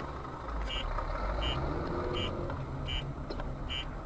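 A short high-pitched electronic beep repeating evenly, about every three-quarters of a second, over the low hum of a vehicle's engine.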